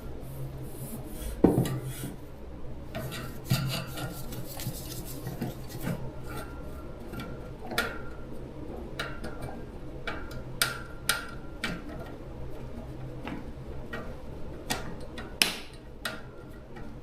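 Metal parts being handled, with scraping and rubbing, a rasping stretch, and scattered sharp clicks and knocks, the loudest about a second and a half in and again near the end. A steady low hum runs underneath.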